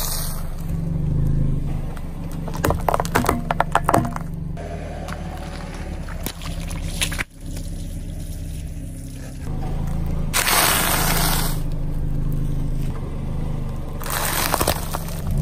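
A car tyre rolling slowly over things on asphalt and crushing them: a run of sharp crackles and snaps, then rushes of tyre noise, over a steady low hum.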